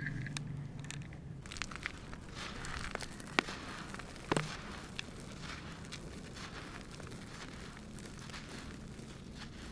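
Dry, crumbly pieces of cement floor crunching and crackling as they break apart, with two sharp snaps about three and four seconds in.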